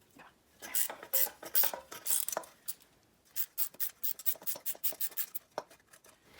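Metal tools and engine parts clinking and scraping as they are handled: irregular knocks and rubs at first, then a quicker, more even run of clicks from about halfway in.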